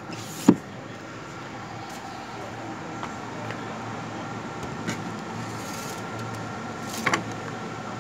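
Gogoro swappable battery being handled during a battery swap. A sharp plastic clunk comes about half a second in as the battery is lifted from the scooter, then a few light clicks. A short clatter of knocks near the end comes as the battery goes into the swap station's slot and a charged battery is pushed out, all over a steady background hum.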